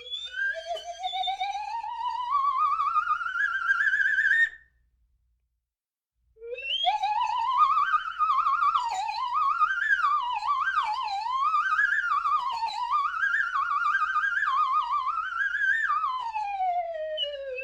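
Slide whistle played with a wavering vibrato: one long slide up that stops abruptly, then after a short pause a rise, a run of quick up-and-down slides, and a slow slide down near the end.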